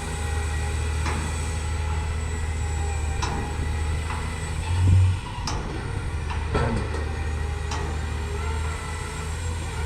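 Heavy machinery of a pile-boring rig running steadily with a low hum, punctuated by occasional sharp knocks and one louder low thump about five seconds in, as the rig bores a deep pile hole.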